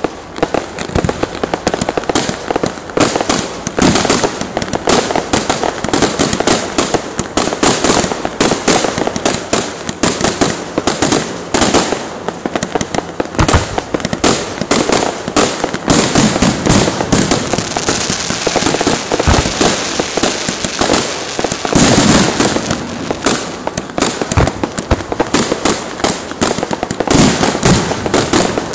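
An electrically fired fireworks and firecracker display going off in a continuous barrage of sharp bangs and crackling, many reports a second without a break.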